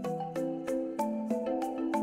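Background music: a bright melody of quick, evenly spaced notes, about three a second.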